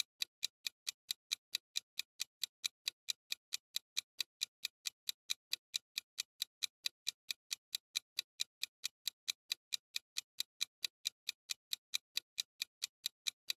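Countdown-timer clock-ticking sound effect: short crisp ticks at a steady pace of about five a second, marking the time left to choose an answer.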